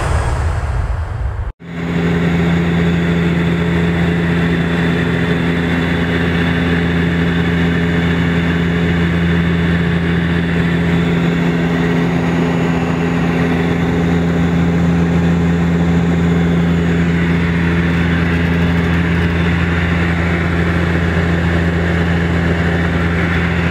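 Steady cabin drone of a Dash 8 Q400's turboprop engines and propellers in cruise, a loud, unchanging low hum heard from inside the passenger cabin. It cuts in abruptly about a second and a half in, replacing a brief rushing sound.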